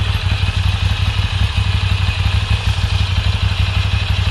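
Moto Guzzi air-cooled transverse V-twin idling steadily, a low even pulsing with some mechanical clatter on top.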